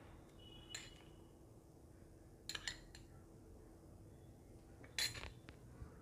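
Metal spoon clinking quietly against a small glass bowl while scooping out semolina: a few short clinks, in three spells about two seconds apart.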